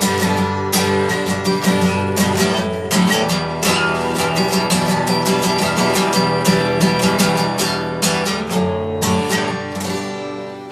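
Acoustic guitar strummed in chords, closing out the song without vocals, getting quieter over the last couple of seconds.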